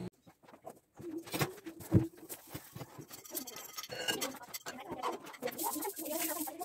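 Low, soft bird cooing, heard twice, with scattered light clicks and a sharper knock about two seconds in.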